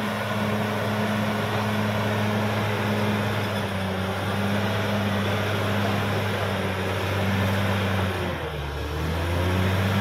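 Caterpillar D6R XL bulldozer's diesel engine running steadily. Its note sags briefly near the end and then picks back up.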